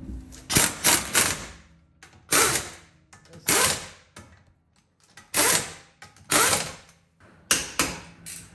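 Impact wrench running lug nuts onto a wheel in a series of short bursts, about eight in all, with pauses between them.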